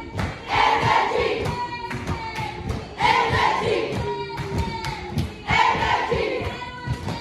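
A crowd of young people singing a repeated chant together, the loud phrase coming round about every two and a half seconds, over a rhythm of low thumps.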